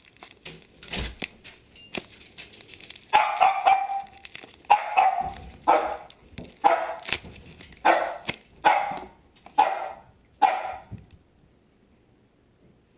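A dog barking in a run of about eight barks, roughly one a second, which then stops. Before the barks there is faint rustling of packing wrap being pulled off a small device.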